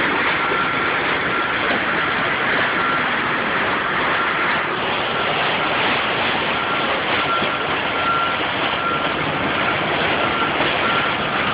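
Electric welding arc burning steadily with a continuous crackling hiss.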